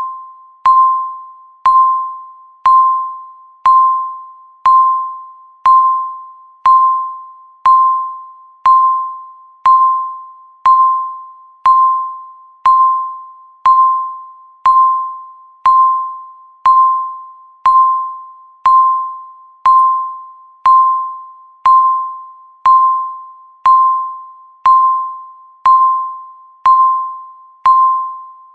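Countdown timer beeping once a second, each beep marking one second left. Each beep is a single chime-like tone that starts sharply and fades away before the next.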